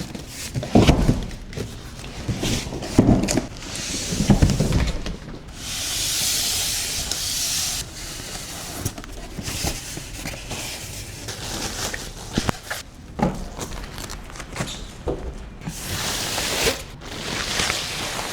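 Unpacking a large boxed speaker: heavy thumps of the box being handled, a few seconds of rustling and sliding packaging, and scattered knocks and clicks.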